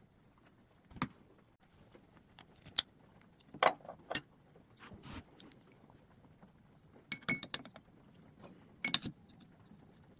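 Irregular sharp clicks and light clinks of hand tools being handled, about a dozen spread unevenly, with small clusters about a third of the way in and again near the end.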